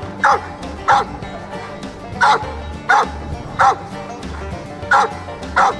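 Search-and-rescue dog barking seven times, in quick groups of two and three, at a person hidden under a blanket in the snow: the trained alert bark that marks a find. Background music with a steady beat runs underneath.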